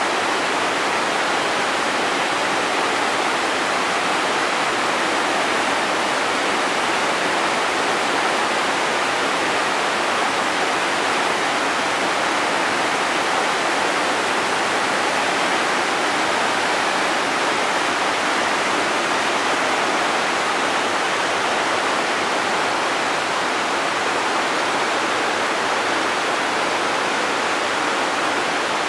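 River rapid: whitewater pouring over rock ledges and through boulders in a steady, unbroken rush.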